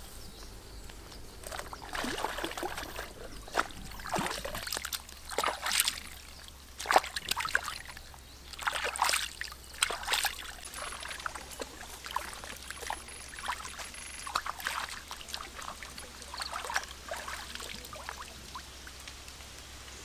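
Pond water splashing and sloshing in irregular bursts as a slab of raw pork ribs is dunked and rinsed by hand.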